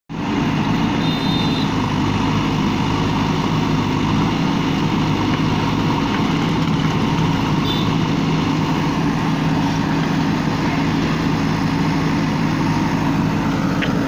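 JCB 3DX backhoe loader's diesel engine running steadily as the rear backhoe arm digs.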